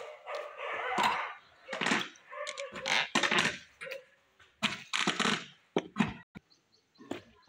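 Irregular knocks and clatter of hand tools working on steel rebar and concrete footing formwork.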